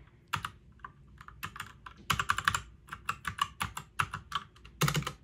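Typing on a compact 60% mechanical keyboard with brown switches: runs of rapid key clicks separated by short pauses.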